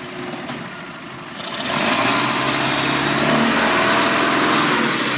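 Boat's inboard engine running, then opened up about a second in: the engine gets louder and is joined by a loud rushing of water and spray off the hull as the boat gets up to speed.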